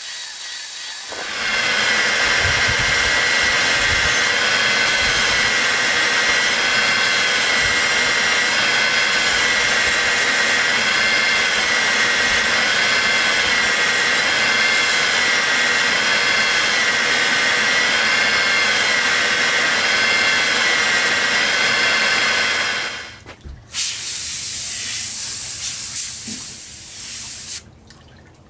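Cut rim of a glass bottle ground against an aluminum oxide sanding disc on a slow-running (600 RPM) Bauer polisher: a loud, steady hissing grind with a high whine that wavers slightly up and down. The grinding stops about 23 seconds in, and fainter machine noise carries on until near the end.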